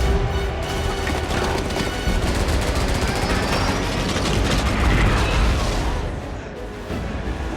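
Rapid gunfire in a film sound mix, a fast stream of shots over a low rumble and dramatic score music. The firing thins out after about four seconds, and the sound dips briefly near the end.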